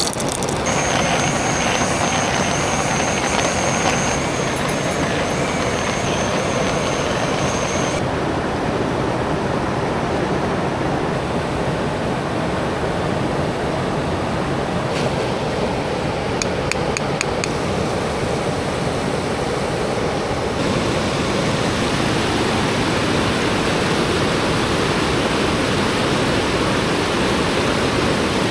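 Rushing river rapids: a steady wash of white-water noise. A faint, high, steady whine sounds over it for the first several seconds, and a short run of quick clicks comes about halfway through.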